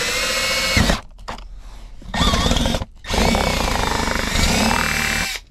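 Power drill boring a hole through a plastic center-console lid, its motor whine wavering in pitch under load. It stops about a second in, runs again briefly, and then runs from about three seconds in until near the end.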